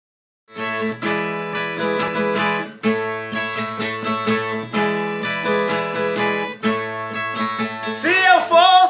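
Viola caipira, the Brazilian ten-string guitar, strummed and picked in a rhythmic instrumental intro, starting about half a second in. A singing voice comes in near the end.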